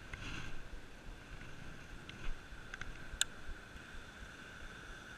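A cast and retrieve with a baitcasting rod and reel: a soft whoosh in the first half second, then faint reel cranking with a few small clicks, the sharpest just past three seconds. A faint steady high hum runs underneath.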